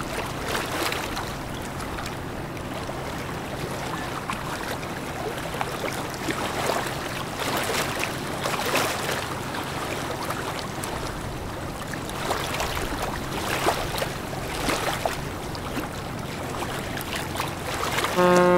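Passing container ship: a low, steady engine hum under the rush of water and wind. Near the end a loud, steady ship's horn blast starts suddenly.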